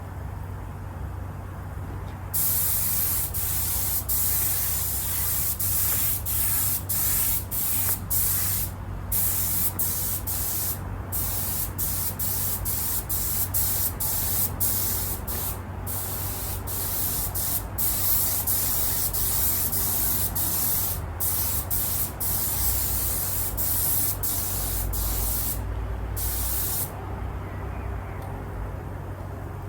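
Paint being sprayed onto a car seat in many short passes, a loud hiss broken by brief gaps as the trigger is let off, starting about two seconds in and stopping near the end. A steady low hum runs underneath.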